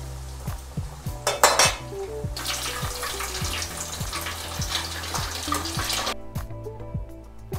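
Breaded meat rolls deep-frying in hot oil, sizzling, with a brief metal clatter about a second and a half in as a steel skimmer knocks against the stainless pot. The crackling sizzle carries on until about six seconds in and then stops. Background music plays throughout.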